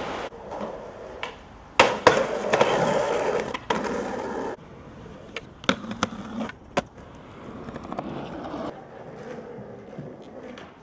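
Skateboards on concrete: wheels rolling, with sharp clacks from tails popping and boards landing. A louder stretch of rolling comes about two seconds in, and single clacks come in quick succession around the middle.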